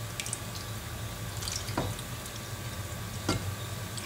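A ladle scooping thick stew-like sauce out of a pan and pouring it over noodles in a bowl: wet liquid pours and splashes, with a few sharp clicks of the ladle against the pan and bowl. A steady low hum runs underneath.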